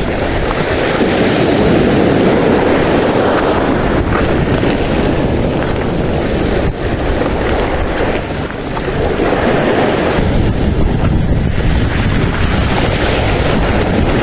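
Strong wind buffeting the microphone, a loud, steady rumble that covers everything else.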